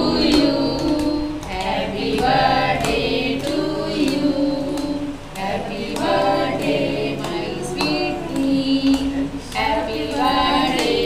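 Several voices singing a birthday song together, in phrases of long held notes.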